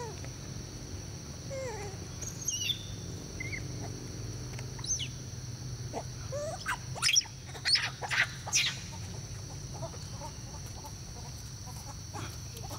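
Monkeys calling: scattered short squeaks and chirps, then a cluster of sharp, loud high-pitched calls about seven to nine seconds in. A steady high insect drone runs underneath.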